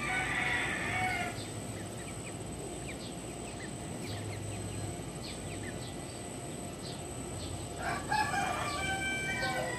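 Backyard chickens: many short, high, downward peeps throughout with low clucks, and a drawn-out pitched call near the end that sounds like a rooster crowing.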